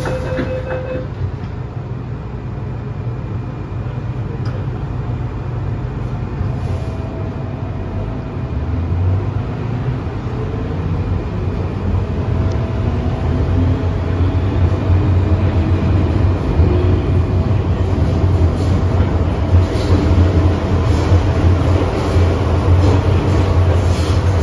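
MTR M-train electric multiple unit departing a station, heard inside the car. A door-warning tone ends just as the doors finish closing. From several seconds in, the traction motors whine, rising in pitch as the train accelerates, over a low running rumble that grows louder.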